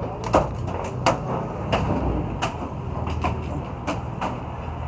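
Demolition of a wooden and sheet-metal stall with hand tools: about ten irregular knocks and bangs of hammer and bar blows on wood and metal, over a low steady rumble.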